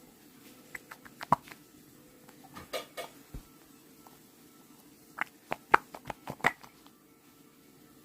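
Light clicks, taps and brief rustles of small objects being handled, in three short clusters: about a second in, about three seconds in, and a quicker run of sharp taps between about five and six and a half seconds.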